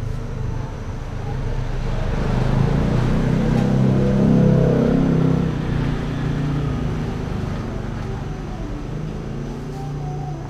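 A motor vehicle's engine passing close by, growing louder to a peak about four to five seconds in and then fading away.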